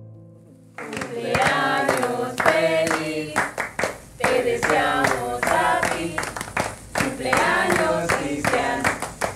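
Several voices singing together with hand clapping, cutting in suddenly about a second in as the last notes of a guitar piece die away.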